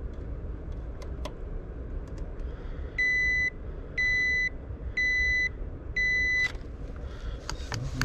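Four electronic beeps, evenly spaced about one a second and each about half a second long, over a low steady hum.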